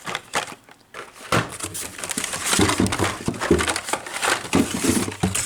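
Carded die-cast toy cars being handled: plastic blister packs and cardboard backs crinkling, with light clacks and knocks as the packs are shuffled. It starts with a few clicks and grows to steady crinkling after about a second.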